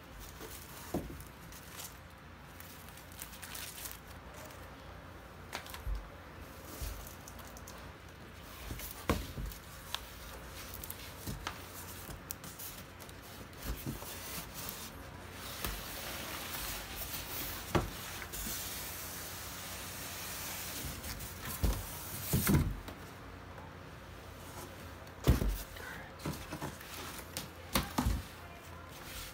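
Styrofoam packaging being pulled out of a cardboard shipping box by hand: scattered knocks and thumps of foam against cardboard, with a longer stretch of scraping and rubbing past the middle. The loudest thumps come in the last third.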